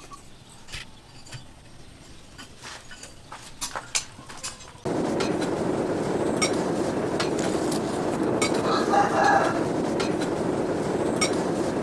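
Faint scattered clicks, then about five seconds in a steady loud rush of air begins and holds: a blower driving a coal forge fire that is heating the knife blade.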